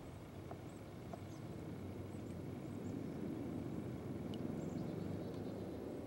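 Steady low rumbling noise that swells a little in the middle, with faint high chirps and a few soft ticks scattered through it.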